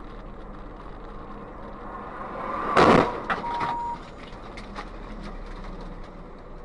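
Quiet in-car noise broken by a sudden loud bang, like an impact, about three seconds in, followed by a short steady beep.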